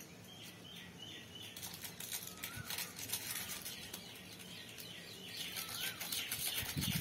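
Crackling and rustling of fingers and fingernails working through hair close to the microphone, picking out nits, with birds chirping in the background.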